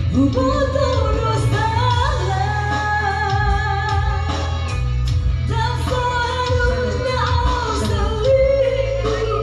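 Music with singing: a sung melody of long held notes over a heavy steady bass line and a regular beat.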